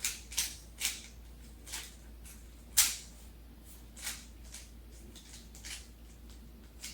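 Plastic Rubik's Cube layers being turned by hand during a solve: irregular short clicking snaps, one or two a second, the loudest about three seconds in.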